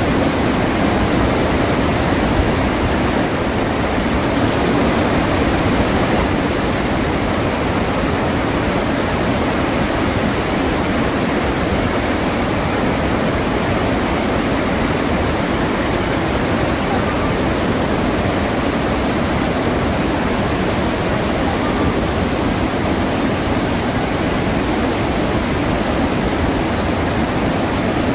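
Iguazu Falls: many large waterfalls plunging into a rocky gorge, a loud, steady rush of falling water that does not change.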